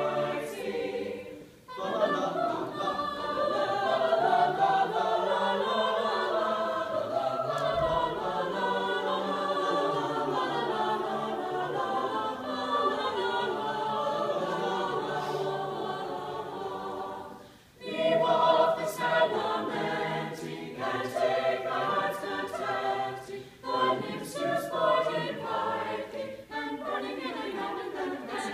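Choir singing, with two short breaks, one about two seconds in and one just past halfway. After the second break the singing turns short and rhythmic.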